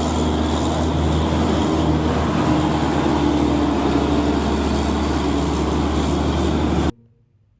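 Steady truck engine running sound with a low hum, cutting off abruptly about seven seconds in.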